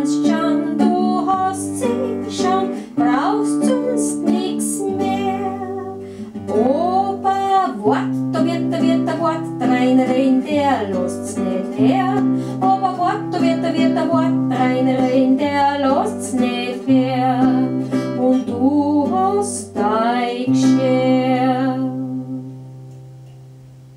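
Instrumental close of an Austrian folk song: guitar accompaniment with held bass notes under a wavering melody line, fading out near the end.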